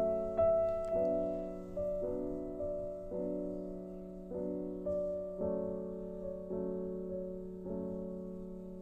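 Gentle background piano music: slow notes and chords struck about twice a second, each fading away, over a held low tone.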